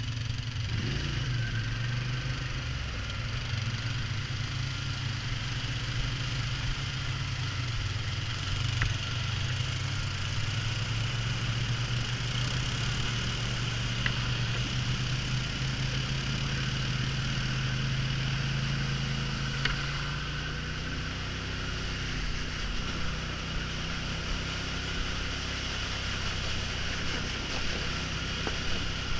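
Polaris Sportsman ATV engine running steadily at trail speed as the quad is ridden along a wet trail and through a creek crossing; the engine note shifts about twenty seconds in.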